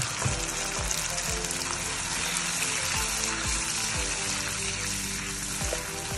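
Chopped and blended onion sizzling steadily as it fries in hot oil in a karahi, the wet onion paste spitting in the oil, over background music with a steady beat.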